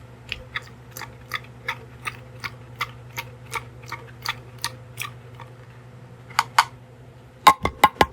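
Light, even clicking of a hard plastic toy cookie, about three clicks a second, pausing, then coming faster and louder near the end.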